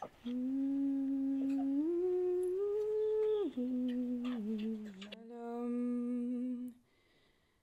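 A single voice humming a slow tune of long held notes, stepping up in pitch and then back down, before breaking off near the end.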